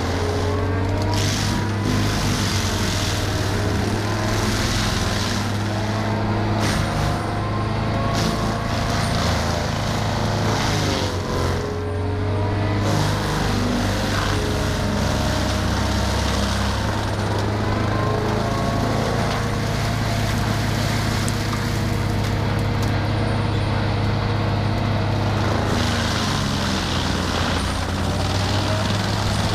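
Engine of a heavy tree-removal machine running steadily under load during almond tree removal, its pitch dipping and recovering about halfway through.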